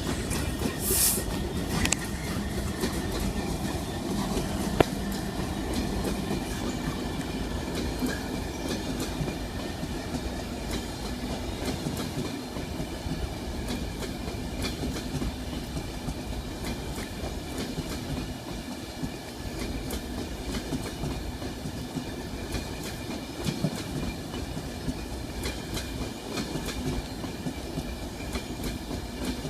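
A train of Mark 4 coaches hauled by a Class 66 diesel locomotive rolls past with a steady low rumble, its wheels clicking over the rail joints.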